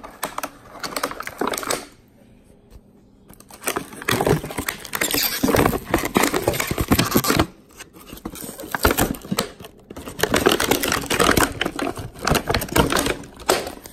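Clear plastic shrink-wrap sleeves around firework canister shells being crinkled and torn open by hand, full of crackles and pops. It comes in bursts, with a short pause after about two seconds and another near the middle.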